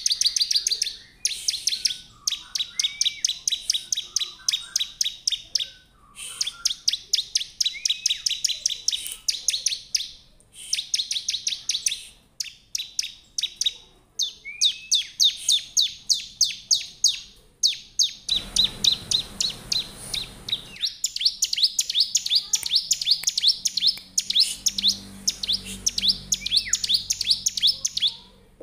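Bar-winged prinia (ciblek) singing: long runs of rapid, high, sharp chirps, several a second, in phrases of a few seconds broken by short pauses. A brief rushing noise lasts about two seconds a little past the middle.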